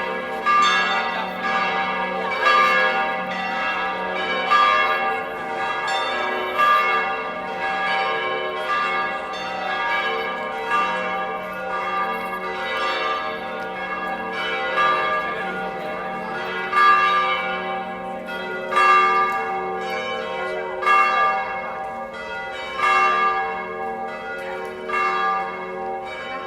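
Church bells ringing in a continuous peal, loud strokes coming about every two seconds over the tones still sounding from the strokes before.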